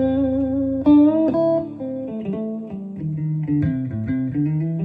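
Guitar playing an instrumental passage of picked notes and chords, a new note or chord every half second or so, with no singing.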